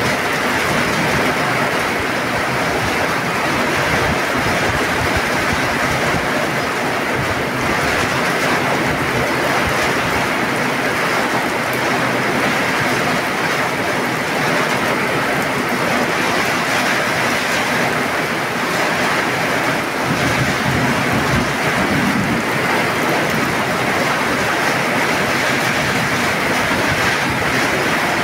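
Heavy rain pouring down steadily, an even dense hiss that holds with no lull.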